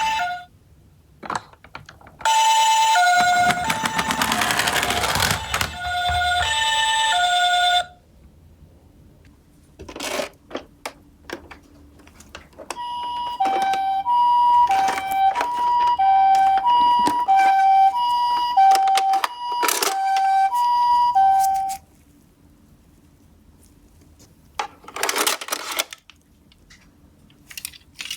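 Japanese-style two-tone ambulance siren, alternating a high and a low note about twice a second, in two long stretches. Between and under them come clicks and a short rattle of plastic toy cars rolling down a cardboard slope.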